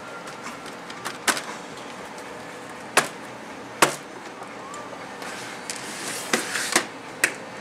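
A Gateway laptop's case being handled and turned over on a desk during disassembly: about six sharp clicks and knocks, spread over several seconds.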